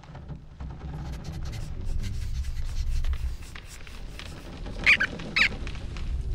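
Two short, high squeaks about half a second apart, near five seconds in, over a low rumble and light rustling clicks.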